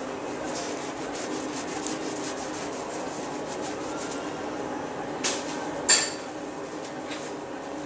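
Faint rubbing of a surgical scrub sponge soaked in antiseptic over the skin of a foot, in repeated strokes, over a steady hum. Two sharp knocks about half a second apart a little after five seconds in.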